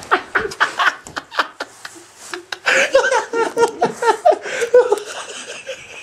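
A person laughing hard in quick, repeated bursts. The laughter eases for a moment about two seconds in, then picks up again louder.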